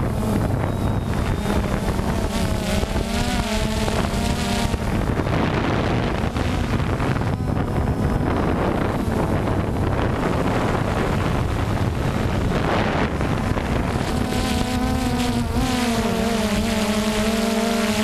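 DJI Phantom 2 quadcopter's electric motors and propellers buzzing in flight, heard up close from the camera mounted on the drone. The pitch wavers and shifts as the throttle changes, twice most clearly, over a rush of wind noise on the microphone.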